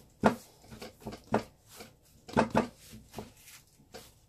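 Irregular wooden knocks and thuds from a wooden board shifting on the counter while bread dough is rolled into logs by hand, about seven in all, the loudest a pair around the middle.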